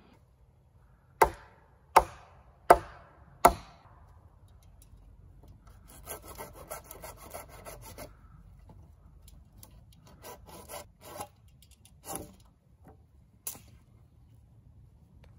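Hand tool working wood: four sharp strikes, about one every three-quarters of a second, then a couple of seconds of rasping and scraping and a few scattered lighter knocks.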